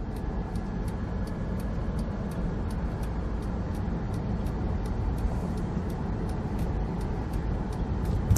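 Steady low rumble of road and tyre noise heard inside a Honda S2000 rolling along under tow, with faint light ticks through it.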